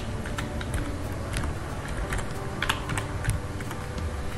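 Typing on a computer keyboard: a run of irregularly spaced key clicks as a short name is entered.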